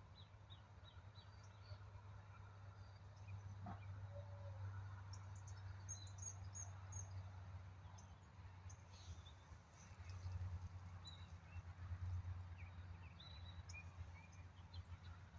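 Faint outdoor ambience: scattered short bird chirps and calls, high-pitched, over a steady low rumble that swells briefly a little past the middle.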